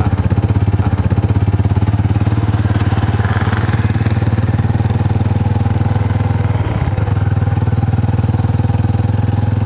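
Small motorcycle engine running steadily at low road speed, heard close up, with a fast even putter.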